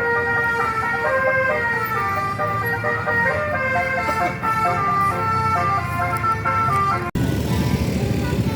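Telolet basuri bus horn playing a tune, several horn notes sounding together and stepping from pitch to pitch. About seven seconds in it cuts off abruptly, giving way to a low rumble with fainter horn notes.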